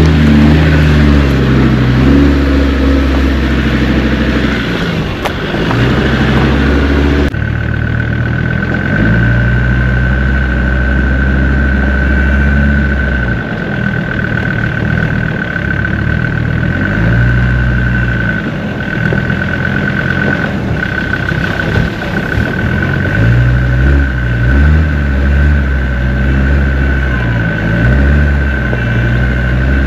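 Land Rover Discovery 2 Td5's five-cylinder turbodiesel engine running at low revs on a rough track, its pitch rising and falling with the throttle. From about seven seconds in, a steady high whine sits over the engine.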